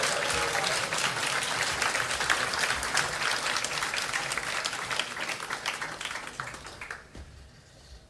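Audience applauding and clapping, fading gradually and dying away about seven seconds in.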